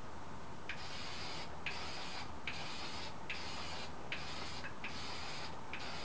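Aerosol spray can of Dupli-Color HWP103 clear wheel coating hissing in about seven short bursts roughly a second apart, beginning about a second in, each starting sharply: clear coat going onto the shock absorbers in light passes.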